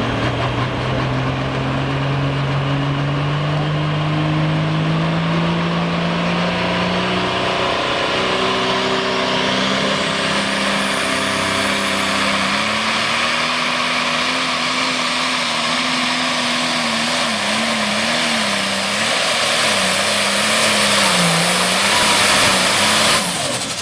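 Modified pulling tractor engine at full throttle under the load of the pulling sled, its pitch climbing steadily as the tractor gets under way, then wavering up and down as the sled bears down, with a high whine above it. Near the end the engine sound drops away sharply as the throttle comes off at the end of the pull.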